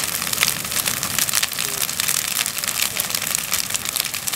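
Wooden shed burning: dense, rapid crackling and popping of burning timber over a steady hiss.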